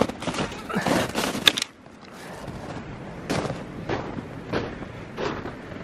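Boots crunching through packed snow in steady walking steps, about one and a half a second, with wind buffeting the microphone for the first second and a half.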